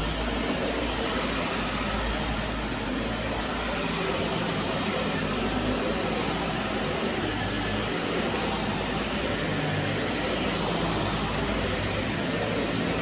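Vacuum cleaner running steadily, its motor giving an even rushing noise over a low hum.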